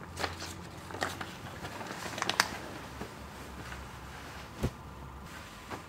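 Paper handling: sheets and a folder rustling and flipping, with a sharp snap of paper about two and a half seconds in and a dull thump later on.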